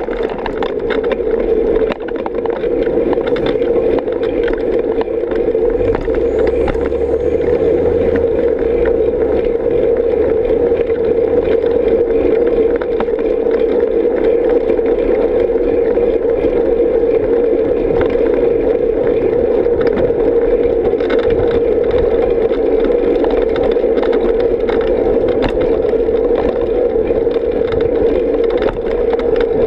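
Steady drone of a bicycle rolling along an asphalt path, tyre and riding noise picked up by a camera on the bike, with a lower rumble between about 6 and 12 seconds in.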